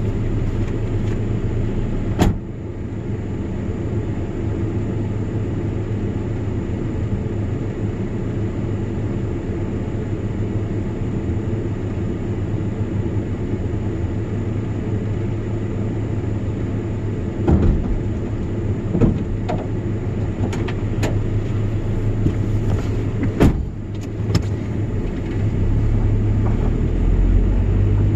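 Vehicle engine running steadily with a low hum, broken by a handful of sharp knocks and clunks, several of them bunched in the later part.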